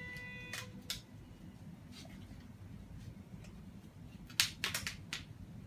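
Sharp plastic clicks from the belt's plastic buckle and strap being handled, a few spread out and then a quick cluster about four and a half seconds in, over a low steady hum. A short tone with overtones dies away in the first second.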